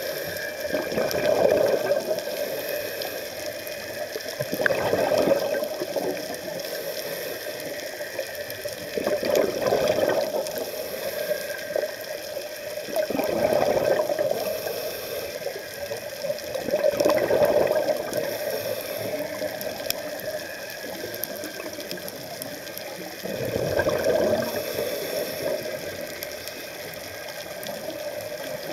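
Scuba regulator breathing heard underwater: a gurgling rush of exhaled bubbles every few seconds, six times, over a steady background hiss of water.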